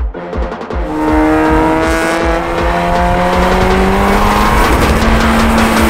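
Honda Civic Si race car's engine accelerating under load. From about a second in its pitch climbs slowly and steadily for several seconds.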